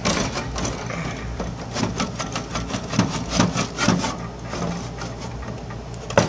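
Close handling noise: irregular knocking, clattering and rubbing of hard parts near the microphone, busiest in the middle and ending with a single sharp knock. A faint steady low hum runs underneath.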